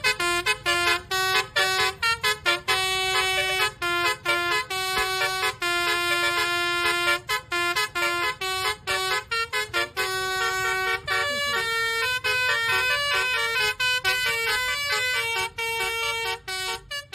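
A bus's basuri musical horn playing a quick tune of short and held notes at changing pitches, over a steady low rumble.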